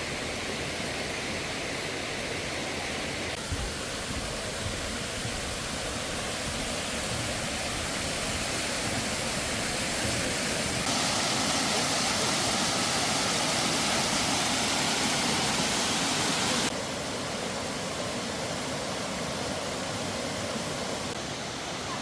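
Mountain valley stream rushing over rocks, a steady hiss of flowing water; it jumps abruptly in loudness and tone a few times, loudest in the middle stretch.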